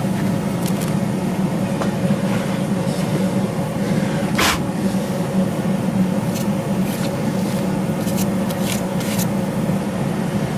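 Steady mechanical hum of the shop's forging equipment, a hydraulic press running as a hot forge-welded billet is pressed. Several short sharp crackling or hissing sounds cut through it, the loudest about four and a half seconds in and a few more near the end.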